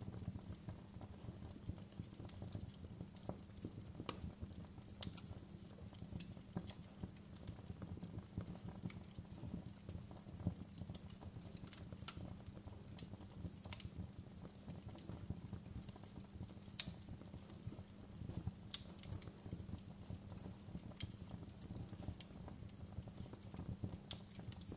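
Wood fire crackling in a fireplace: irregular sharp pops and snaps, a few louder than the rest, over a low steady rumble of burning.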